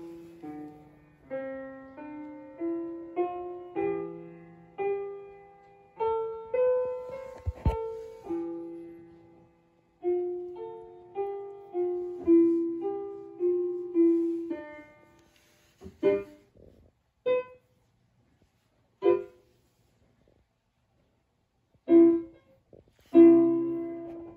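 Background piano music: a melody of single ringing notes over chords that thins out about halfway to a few separate chords with pauses between them, then picks up again near the end.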